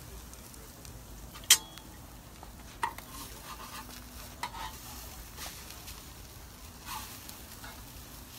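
Food frying and sizzling on a propane gas cooker while a metal utensil stirs it, with a sharp metal clank about a second and a half in, a smaller one just before three seconds, and lighter scrapes after that.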